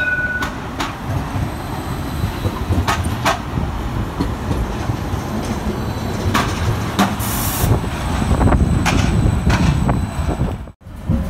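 CAF Urbos tram pulling into a street stop and drawing to a halt beside the platform: a steady low rumble, a few light clicks, and a short hiss about seven seconds in.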